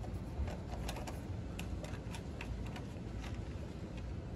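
Light, irregular clicks of a hand-turned 10 mm nut driver working the nuts off a Predator 212 engine's plastic air filter housing, over a steady low background hum.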